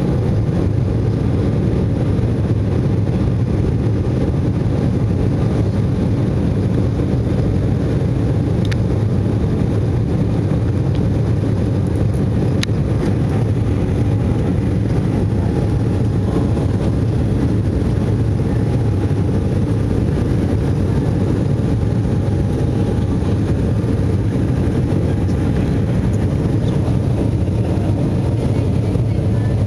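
Steady low drone inside the cabin of an Embraer E-190 jet airliner climbing after take-off: its twin CF34 turbofan engines and the rush of air over the fuselage.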